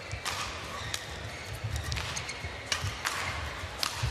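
Badminton rackets striking a shuttlecock back and forth in a rally: sharp hits about once a second, over the low rumble of a large hall.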